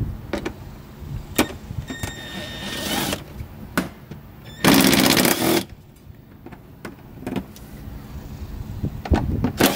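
Cordless power driver backing out small 7 mm bolts from a fender-well cover: a short whirring run about two seconds in, a louder burst of about a second near the middle and more near the end, with light clicks and taps of the bit and loosened bolts between runs.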